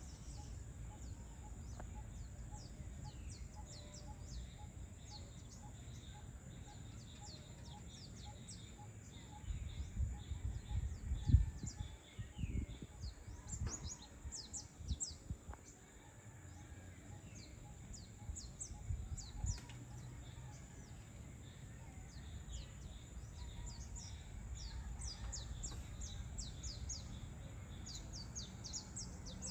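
Birds chirping over and over in short, quick, falling high notes. Low rumbling gusts of wind on the microphone come in about ten seconds in, loudest near eleven seconds, and again briefly near twenty seconds.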